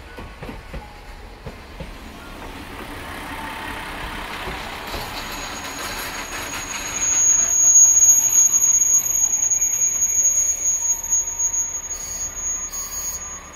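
JR Geibi Line diesel railcar pulling into a station, its running noise growing louder as the cars pass close by. From about seven seconds in there is a steady high squeal as it slows to a stop, with a few short hisses near the end.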